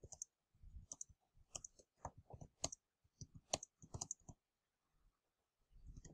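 Computer keyboard keys clicking faintly and unevenly as a short sentence is typed, pausing for about a second and a half before a few more keystrokes near the end.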